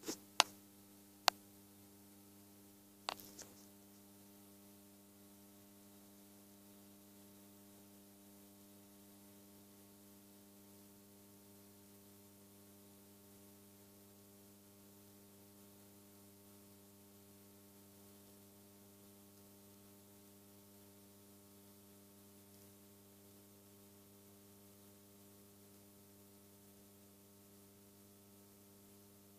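Faint steady mains hum from a 70 W sodium floodlight and its control gear while the lamp warms up, with a few sharp clicks in the first four seconds.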